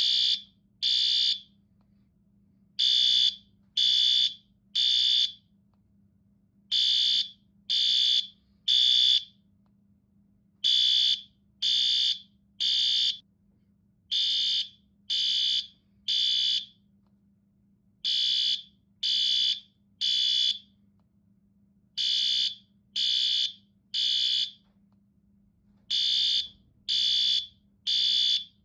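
Fire alarm sounding the temporal-three pattern: high-pitched beeps in groups of three, each group followed by a longer pause, repeating about every four seconds. This is the standard evacuation signal.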